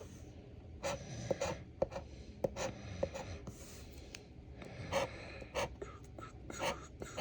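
Scratch-off lottery ticket being scratched: a run of short, irregular scraping strokes with brief pauses between them.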